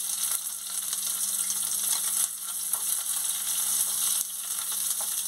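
Chopped onion frying in hot oil in a kadai, a steady crackling sizzle, along with garlic, ginger, green chillies and curry leaves already in the oil.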